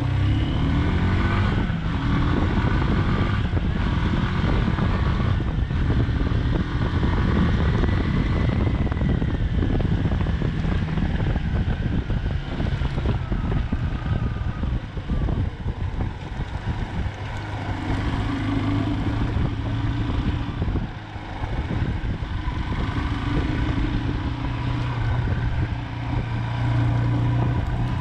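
FABIO road motorcycle's engine running on the move, revving up with a rising pitch in the first couple of seconds, then pulling steadily. Wind buffets the microphone.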